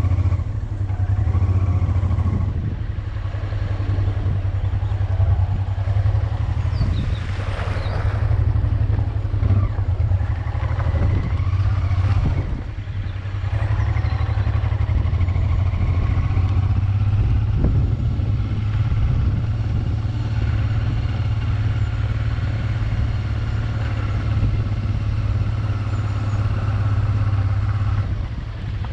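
Honda Transalp motorcycle engine running as the bike is ridden: a steady low drone, its note rising and falling a few times.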